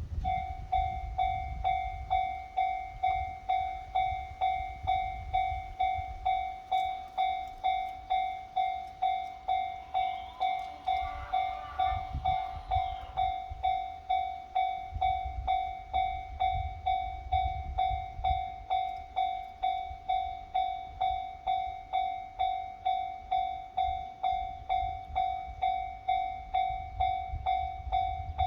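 Japanese railway level crossing's electronic warning bell ringing, an even, repeated ding at about one and a half strikes a second, over a low rumble. A brief sound with a wavering pitch comes in about ten seconds in.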